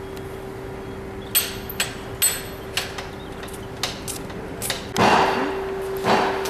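Metal clicks and knocks from a hydraulic floor jack being worked under a van, then two louder rushes of noise about five and six seconds in, over a steady hum.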